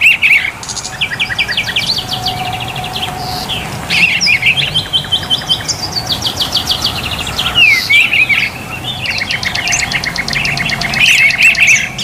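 Songbirds singing: rapid trills and quick runs of repeated high notes, loud and almost without pause.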